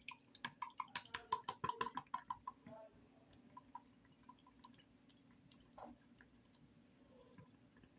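Slime being squeezed and worked in the hands, giving a quick run of small wet clicks and pops for the first few seconds, then only scattered faint clicks.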